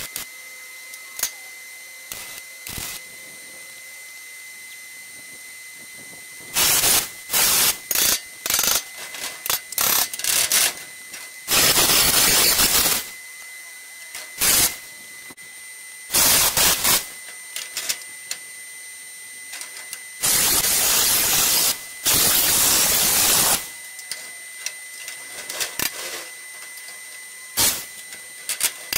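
MIG welding on a steel trailer frame with a transformer-based Hobart Beta MIG 200: a quick string of short tack welds, then several longer beads of steady arc crackle, each a second or two long, with pauses in between.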